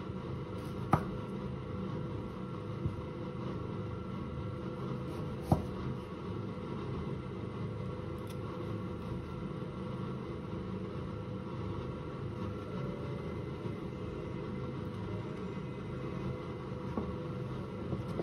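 A steady low mechanical hum with a light hiss, as of a kitchen appliance running, broken by a few light clicks and taps. The sharpest tap comes about five and a half seconds in.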